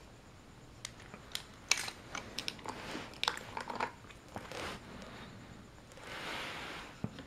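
Hard plastic toy pieces being handled: a scatter of small clicks and knocks as toy trains and a toy figure are picked up, turned over and set down, followed by a softer scraping rustle near the end.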